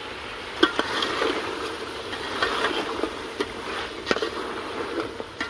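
Chicken sizzling as it fries in oil in a cooking pot while salt is mixed in, with a few sharp knocks of a spoon against the pot.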